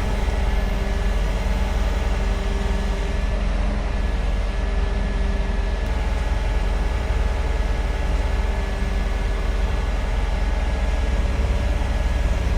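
Excavator's diesel engine running steadily, a deep low rumble with a steady hum above it.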